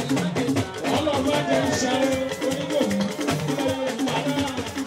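Dance music with a steady beat of drums and shakers over a bass line.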